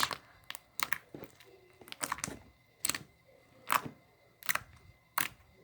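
White glue slime with black foam beads being squeezed and stretched, giving off sharp, irregular clicks and pops, about ten in all. It is very clicky.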